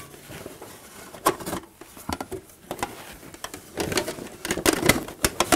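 Polished aluminium plate armour clinking and knocking as the helmet is lifted and settled onto the wearer: a scatter of sharp metallic taps, more of them near the end.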